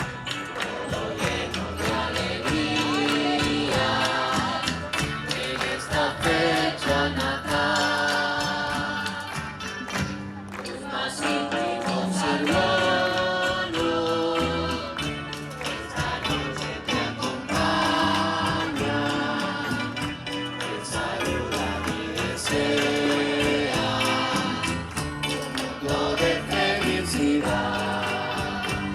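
Religious music with a group singing to instrumental accompaniment, held notes stepping from one pitch to the next over a steady, rapid shaking percussion.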